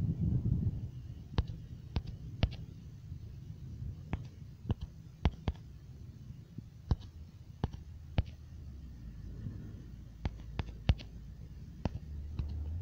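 Typing on a smartphone's on-screen keyboard: sharp, irregularly spaced taps or clicks, never more than a few a second, over a low rumbling background hum.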